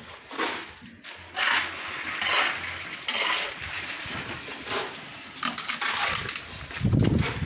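Wet concrete mix slopping and scraping out of buckets, in about six short splashy bursts at irregular intervals. A low rumble comes in near the end.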